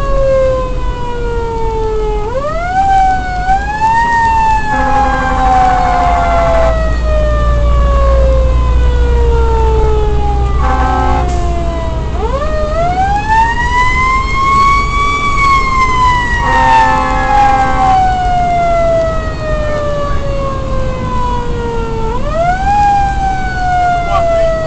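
Fire engine siren heard from inside the cab, wound up three times and each time left to wind slowly down in a long falling wail. Three blasts of the air horns come about five, eleven and seventeen seconds in, over the engine's steady low rumble.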